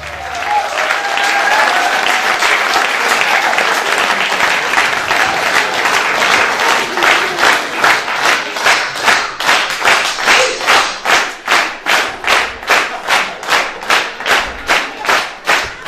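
Audience applauding: scattered applause that turns, about halfway through, into rhythmic clapping in unison at about two to three claps a second.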